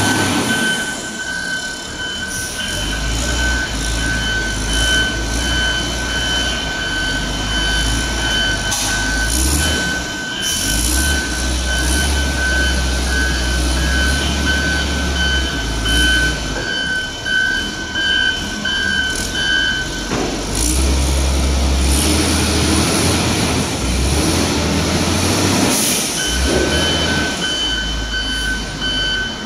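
Wheel loader's diesel engine running under load, swelling and easing as it pushes compost, with a steady high-pitched whine from the machinery that stops about two-thirds of the way through and comes back near the end.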